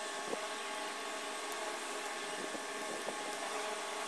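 Steady background hiss and hum, with a few faint light clicks from a thin wire and the CFL's plastic housing and circuit board being handled as the wire is wrapped onto a tube pin.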